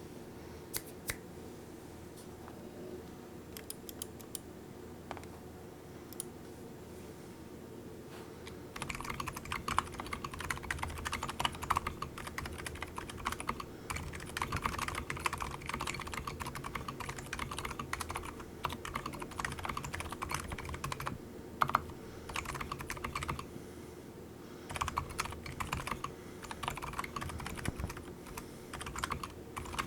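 Keychron K10 mechanical keyboard fitted with Cannonkeys Blue Macaw silent tactile switches and a silicone dampener, being typed on: a few scattered keystrokes, then steady continuous typing from about nine seconds in, with a brief pause near the end.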